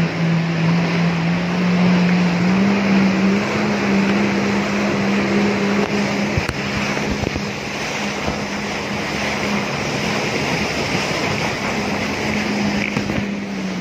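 Jet ski engine running at speed, a steady drone whose pitch steps up a little about two seconds in and drops back near the end, over the hiss of water spray off the hull.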